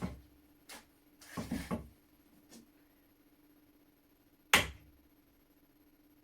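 Short knocks and clicks of a tool working a stuck pin out of a rusty flintlock shotgun's trigger assembly: one right at the start, a few together about a second and a half in, and a single sharp, loud knock about four and a half seconds in.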